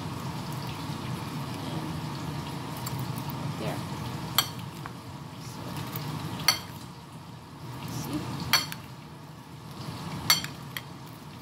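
A metal spoon clinks against a ceramic plate four times, about two seconds apart, while spooning chopped tomato and onion dressing over fried fish. A steady low background noise runs underneath.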